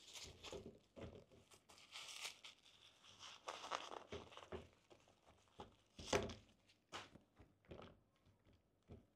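White tissue-paper stuffing crinkling and rustling as it is pulled out of a pair of flip flops, followed by scattered soft knocks and taps of the sandals being handled; the sharpest knock comes about six seconds in.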